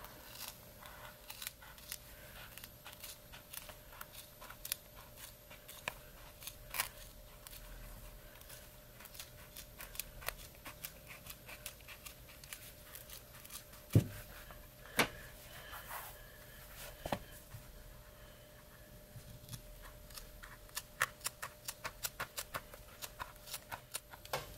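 Scissors cutting through a sheet of leather in short, irregular snips, with a few louder snaps around the middle and a quicker run of snips near the end.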